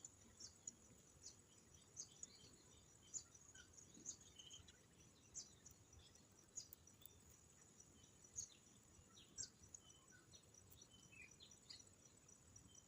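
Faint birds chirping in short, scattered calls over a steady, high-pitched insect trill.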